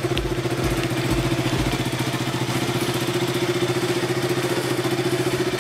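KTM single-cylinder motorcycle engine running steadily at idle.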